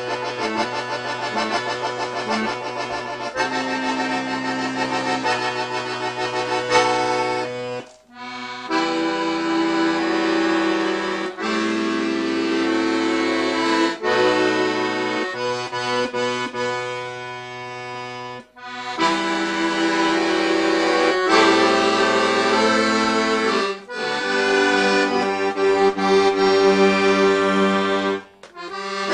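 Background instrumental music of held notes and chords, with three short breaks.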